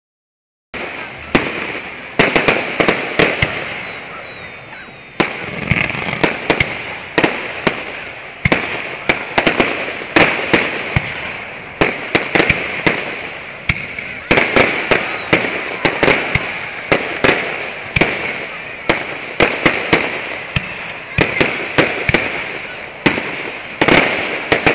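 Aerial fireworks going off in quick succession: sharp bangs follow one another, sometimes several a second, each trailing off in a rolling echo.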